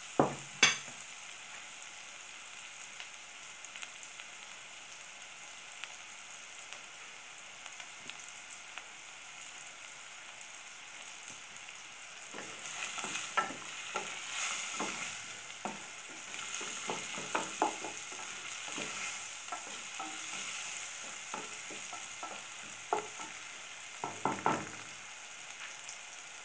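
Chopped onion, garlic and spices sizzling steadily in oil in an enamel pot. A spoon knocks on the pot just after the start, then scrapes and clicks against it while stirring through the second half.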